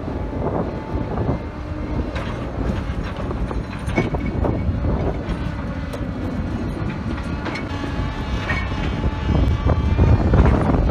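Tracked excavator working a rock face at a distance: its engine gives a steady rumble, with irregular knocks and clatter as its arm works against rock that will not crack.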